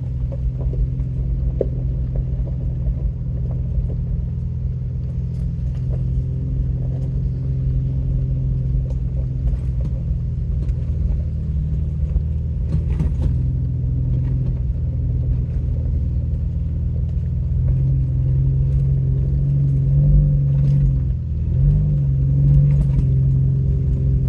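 Off-road vehicle's engine running under light load on a rough trail, heard from inside the cab, with scattered knocks and rattles. The engine note grows stronger about three-quarters of the way through, dips briefly, then picks up again.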